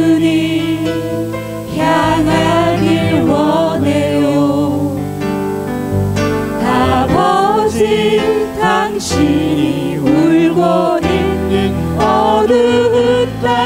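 Mixed vocal ensemble of male and female voices singing a Korean contemporary worship song through microphones, over instrumental accompaniment.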